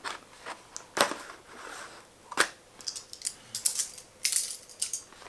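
Small cardboard and plastic packaging being handled, with irregular sharp clicks and crinkles. The loudest come about a second in and again near two and a half seconds, and a quick run of them follows a little later.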